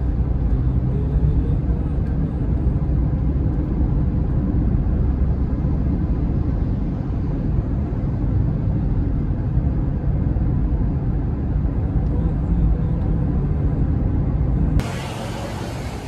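Car driving at highway speed, heard from inside the cabin as a steady low road and engine rumble. About a second before the end it cuts suddenly to quieter outdoor street ambience.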